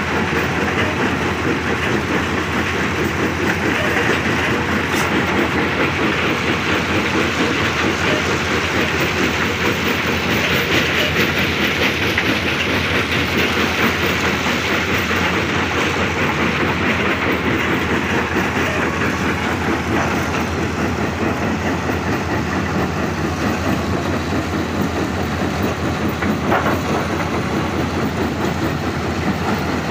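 Kobelco 380 excavator's diesel engine and hydraulics running steadily as the machine works, a continuous dense mechanical noise.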